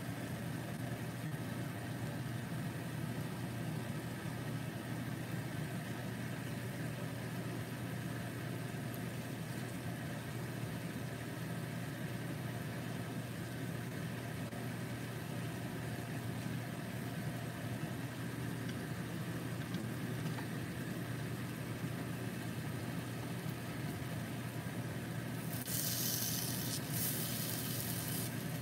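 Pan of sautéed tomatoes and egg sizzling steadily on an electric stove over a steady low hum. About three seconds before the end the sizzle turns louder and hissier as a spatula is pushed into the pan.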